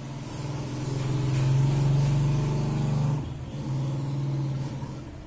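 A motor vehicle engine running at a steady low pitch, swelling about a second in and dipping briefly past the middle.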